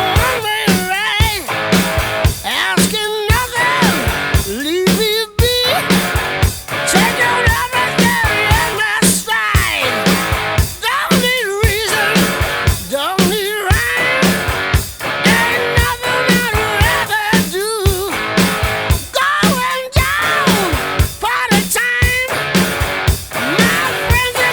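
Rock music with electric guitar, a steady drum beat and a singing voice.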